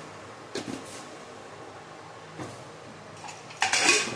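Aluminium pressure-cooker lid clattering as it is picked up and handled over the pot, starting about three and a half seconds in, after a few soft knocks from the pot.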